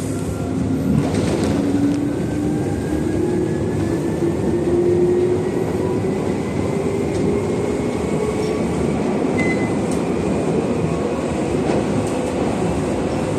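Electric train heard from inside the carriage: a steady rumble of wheels on track, with the motors' whine rising in pitch over the first several seconds as the train picks up speed, then levelling off.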